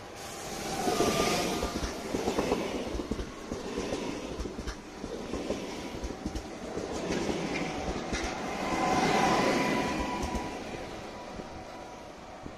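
Koleje Dolnośląskie electric multiple unit running past at close range, its wheels clicking over the rail joints, with a thin steady whine over the rumble. It is loudest about a second in and again around nine seconds in, then fades.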